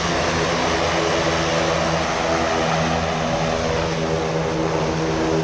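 Propeller aircraft engine running steadily on the ground, a jump plane waiting with its propeller turning: an even drone with a constant pitch over a broad rushing hiss.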